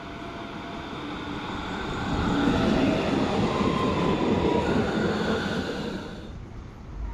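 Tram running past on its rails, the rolling wheel noise building and then fading, with a thin metallic wheel squeal over it in the middle. The sound cuts off abruptly about six seconds in.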